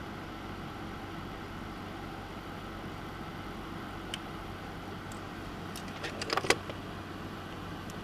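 Knobs being fitted onto the potentiometer shafts of a synth mixer kit: a single small click about four seconds in, then a short cluster of clicks and rattles about two seconds later, over a steady low background noise.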